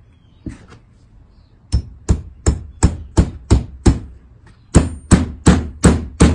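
Hammer driving a barn staple into a block of wood: two light taps, then a run of sharp, even blows about three a second, a short pause, and another run of blows.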